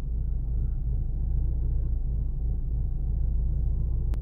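Honda D16Y8 1.6-litre SOHC VTEC four-cylinder idling steadily, heard from inside the car's cabin, with a single brief click about four seconds in. The engine is warming up on a P28 ECU base map, which the owner finds runs it lean at idle.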